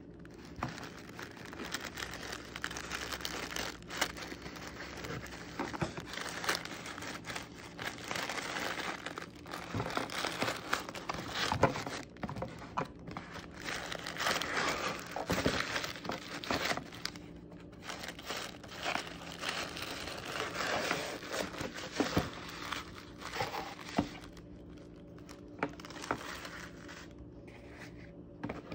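Tissue paper crinkling and rustling as it is handled and unfolded, with paper tearing as the wrapping's seal is broken. The crackling is irregular, louder in the middle and quieter near the end.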